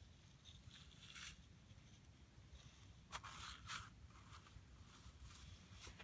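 Faint, short scrapes and rustles of a small plastic toy front loader and a child's hands moving through coarse sand, a few in a row about a second apart, over a low steady rumble.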